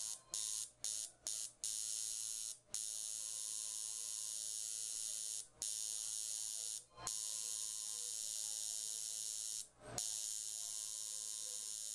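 Permanent makeup machine buzzing with a high, hissy whine as its needle works iron-oxide pigment into the upper lash line for permanent eyeliner. It breaks off briefly several times in quick succession in the first two seconds, then runs in longer stretches with a few more short breaks.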